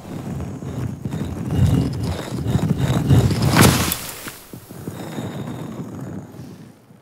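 Stone grinding and rumbling with many small clattering knocks as a staircase of stone blocks slides out of a giant stone statue's mouth, loudest in the middle with a sharp crack about three and a half seconds in, then dying away near the end.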